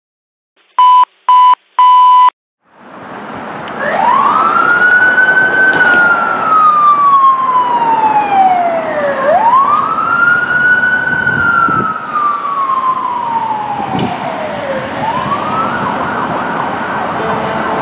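Three short electronic beeps, then a fire department emergency vehicle siren wailing loudly. It rises quickly and falls slowly in long cycles, about three times, over a broad rushing noise.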